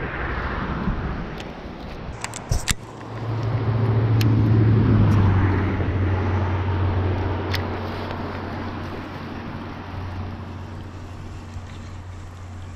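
An engine's steady low drone swells up about three seconds in, peaks, then slowly fades away, as of a motor passing at a distance. A few sharp clicks come just before it.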